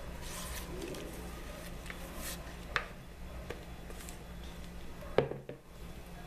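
Silicone spatula scraping thick cake batter out of a mixing bowl into a metal cake pan, with soft wet squelches and a few light knocks of bowl and utensil. A sharper knock about five seconds in as the bowl is set down on the counter.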